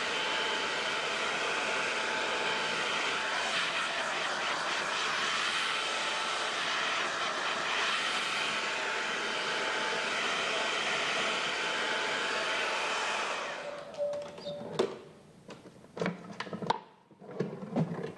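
Hand-held hair dryer blowing steadily, then switched off about three-quarters of the way through. A few sharp clicks and knocks follow.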